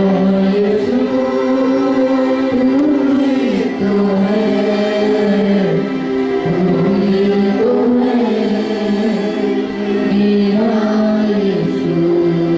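Choir singing a Christian devotional song in long held notes.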